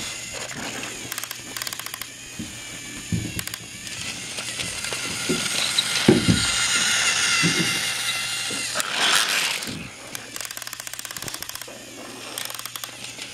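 Battery-powered toy train's small electric motor buzzing with a fast gear rattle as it runs in reverse, its battery turned around. It grows louder with a high whine as the engine and its truck pass along the plastic track about halfway through, with a few soft knocks along the way.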